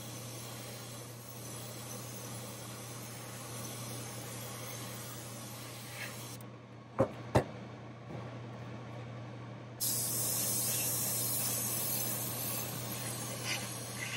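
Airbrush spraying paint with a steady hiss over the low hum of a spray booth's exhaust fan. About halfway through the spraying stops for some three seconds, broken by two sharp clicks, then starts again louder.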